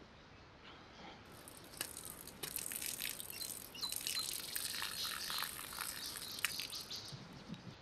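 A drink and ice cubes splashing onto grass and dirt: a spattering hiss full of small clicks and ticks. It starts about a second in, is fullest in the middle and thins out near the end.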